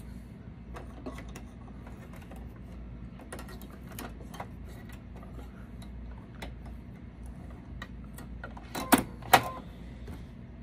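Hand threading of a Brother Innov-is embroidery machine: light clicks and taps of thread and plastic parts at the needle area, over a steady low hum. Two sharp clicks come close together about nine seconds in.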